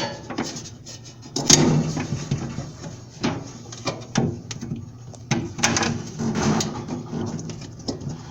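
Irregular clicks, knocks and rattles of a dryer's drive belt being worked by hand onto the spring-loaded tensioner pulley inside the dryer cabinet.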